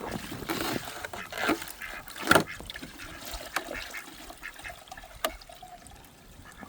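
Domestic ducks quacking around a waterer, with water sloshing and being poured from a bucket; one sharp knock or splash about two seconds in is the loudest sound.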